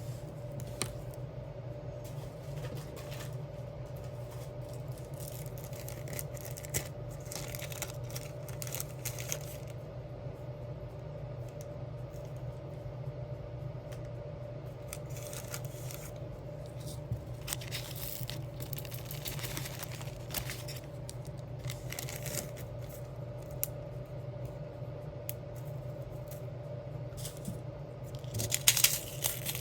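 Diamond painting: small clicks and light scratches of a drill pen picking up resin gems and pressing them onto a sticker sheet, scattered unevenly over a steady low hum. Near the end comes a louder run of crinkling, like plastic film or sheet being handled.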